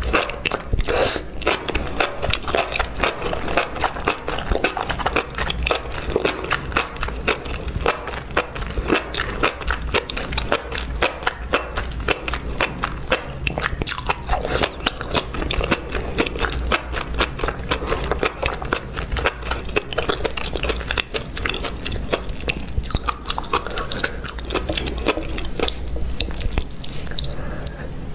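Close-miked ASMR eating: a person chewing and biting food, a dense run of rapid sticky clicks and crackles from the mouth.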